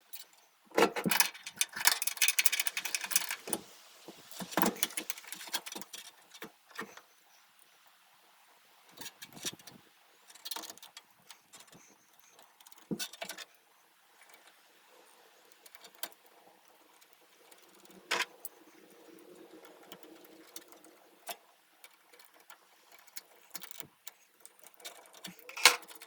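Hand work refitting a battery into a generator: a burst of metallic rattling and clatter in the first few seconds, then scattered clicks and knocks as the battery and its cables are set in place.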